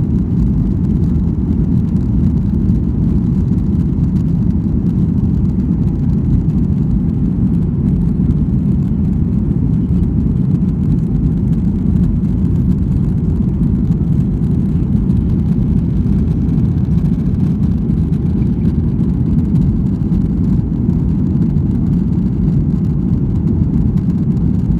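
Boeing 737-800 airliner's CFM56 turbofan engines and airflow heard from inside the cabin at takeoff power: a loud, steady, low rumble.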